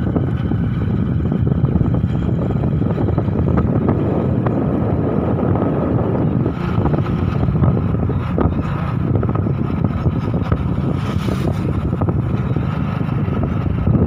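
Steady wind rush on the microphone over the engine and road noise of a moving two-wheeler, running at an even speed.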